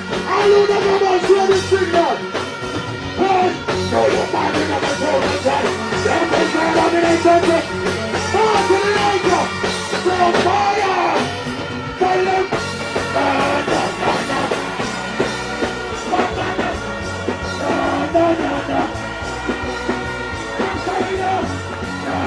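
Live dancehall performance: a male vocalist singing into a stage microphone over loud backing music played through the sound system.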